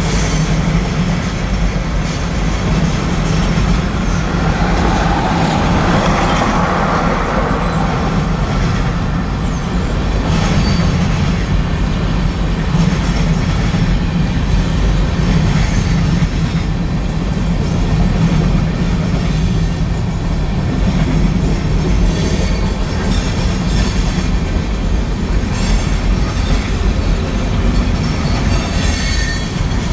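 Freight train's tank cars and covered hopper cars rolling past: a steady rumble of steel wheels on the rails with a clickety-clack over the rail joints. Faint high wheel squeal rises here and there, around a third of the way in and again near the end.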